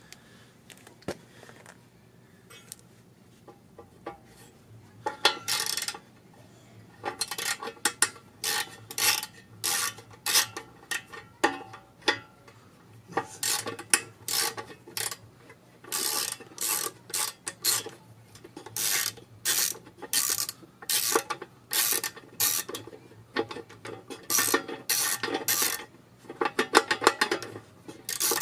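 Hand ratchet wrench clicking in repeated strokes, a short run of rapid clicks about once a second, as bolts on the engine are worked loose by hand. It starts about five seconds in after a quiet stretch.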